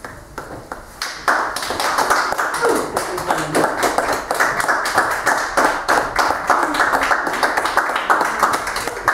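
Audience applauding: a few scattered claps, swelling into full, dense clapping about a second in.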